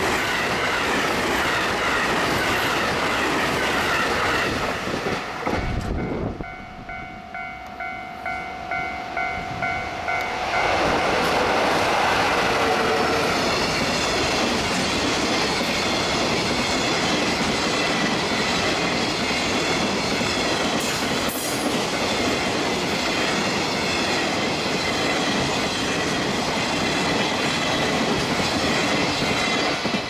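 A train rushes past close by, then an EF66 electric locomotive hauling a long container freight train rolls past, its wheels clattering steadily over the rail joints. A level-crossing warning bell rings through the quieter gap between the two trains.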